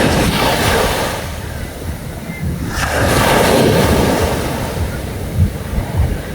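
Sea waves breaking and washing up the beach, surging at the start and again about three seconds later, with wind buffeting the microphone.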